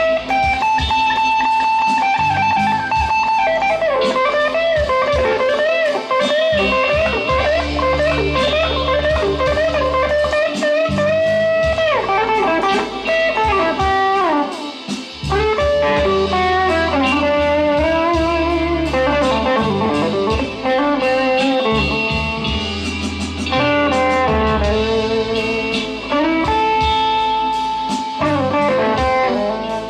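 Fender Player Stratocaster HSS Plus Top electric guitar playing a blues lead, with held notes shaken by vibrato and notes bent up and down in pitch.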